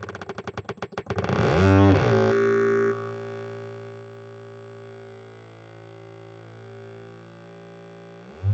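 Homemade single analog oscillator buzzing through PC speakers and a subwoofer. A pulsing buzz gives way to pitch sweeps up and down about a second in, then settles into a steady buzzing tone, loud at first and then quieter. Near the end the pitch sweeps up again and it cuts off.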